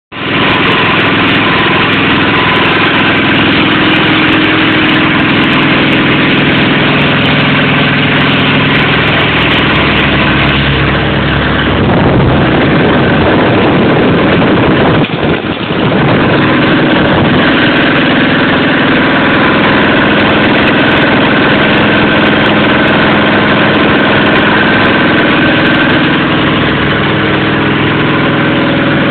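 Small engine running steadily while it drives the hydraulic pump of a hydrostatic dynamometer. Around the middle the even note turns rough for several seconds, with a brief dip in level, then settles back to a steady run.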